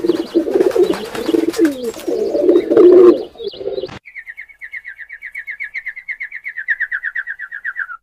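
Pigeons cooing, with a flutter of noise among the calls. About halfway through this stops abruptly and a rapid, high trill takes over, falling slowly in pitch.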